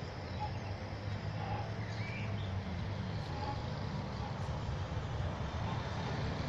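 Outdoor city ambience: a steady low rumble, with a few faint short chirps, one about two seconds in.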